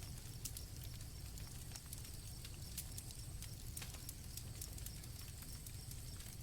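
Campfire crackling with scattered sharp pops over a low steady rumble, and crickets chirping faintly in the background.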